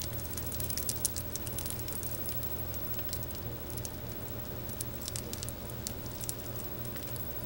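Faint scattered crackles and light ticks over a steady low hum: an Argentine boa's dry old skin crinkling as she crawls out of her shed.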